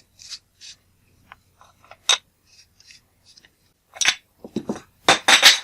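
Metal tool scraping and clicking against a camera lens barrel while a part is worked loose, with a sharp click about two seconds in. A louder rattling clatter near the end, as a small lens part drops onto the work surface.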